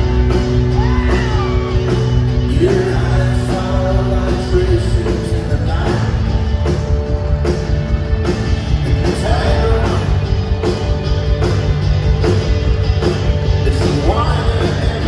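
A live rock band playing on stage, with electric guitars, keyboard and drums, and a voice singing over them. The music is loud and steady throughout.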